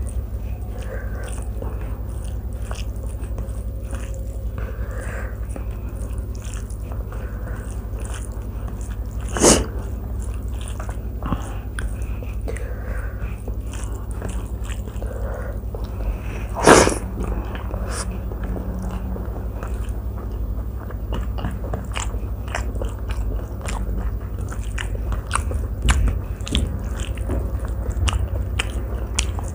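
Close-miked eating: chewing with many small mouth clicks and smacks. Two louder sharp knocks come about nine and seventeen seconds in, over a steady low hum.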